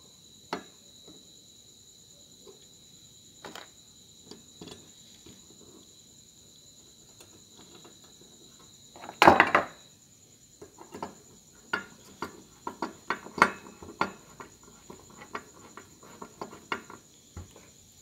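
Small hardware being handled on an amplifier's aluminium heatsink: scattered clicks and taps, a louder rattling cluster about nine seconds in, then a quicker run of clicks. A steady high-pitched tone runs underneath.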